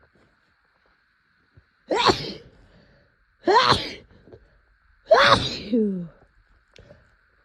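A person sneezing intensely three times in quick succession, about a second and a half apart, in a rapid fit set off by sniffing chhinkni sneezing powder. The third sneeze trails off into a falling voiced sound.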